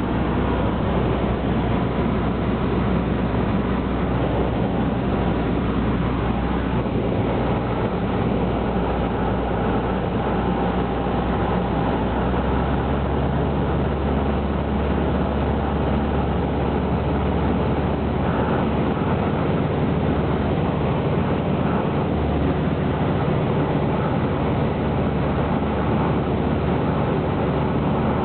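Cessna 152's four-cylinder Lycoming piston engine and propeller droning steadily in flight, its engine note changing about twelve seconds in.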